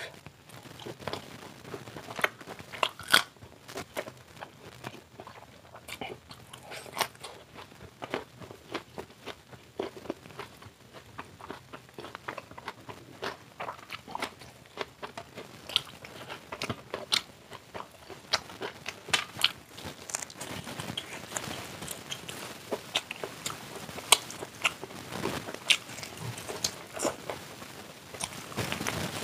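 Close-miked eating of fried chicken drumsticks: crunchy bites into the fried crust and chewing, many short sharp crunches scattered throughout.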